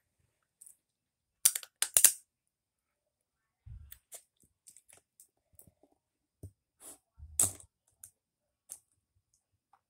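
Close-up eating sounds: sharp wet clicks and smacks of chewing and lip-smacking, loudest about one and a half to two seconds in and again near the seven-second mark, with scattered quieter clicks and a couple of dull bumps between them.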